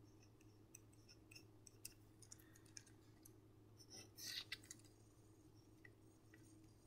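Faint scratching and ticking of a Pilot G-2 gel pen writing on paper, a little louder about four seconds in, over a low steady hum.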